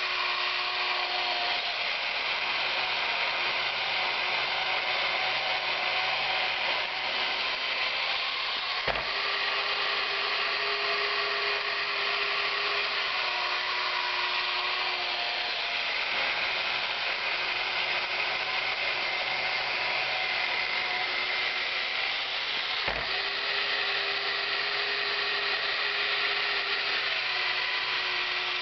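Battery-operated McGregor figure toy's small electric motor and gears whirring steadily with a grinding buzz, its pitch shifting slightly now and then. A sharp click about nine seconds in and again about fourteen seconds later.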